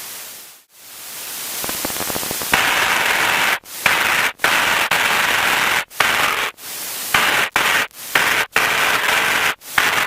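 Loud static-like hiss of cockpit noise on the recording, cutting out abruptly for a moment again and again, about once or twice a second.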